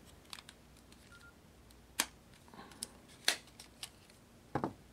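Scattered sharp clicks and knocks of a Nokia N97's plastic back cover being handled and removed. The sharpest are about two seconds in and a second later, with a double knock near the end.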